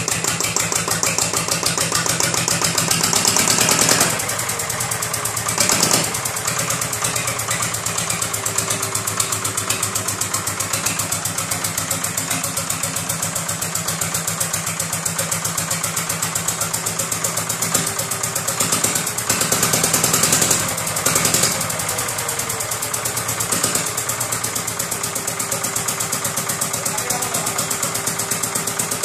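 Lister TS2 air-cooled two-cylinder diesel engine running just after a cold start, with a fast, even exhaust beat. It runs briefly louder twice, about two to four seconds in and again around twenty seconds in.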